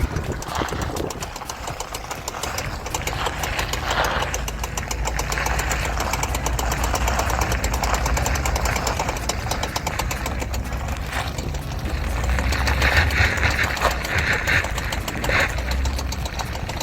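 Lifted Ford F-150 in four-wheel drive while turning: rapid, loud snapping and clicking from the front left, over the engine running. The mechanic takes it for a possibly failing front CV axle.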